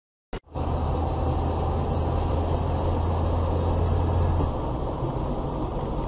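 A short click, then the steady road and engine noise of a car driving at about 58 km/h, heard from inside the cabin. A strong low drone runs underneath and eases off about four and a half seconds in.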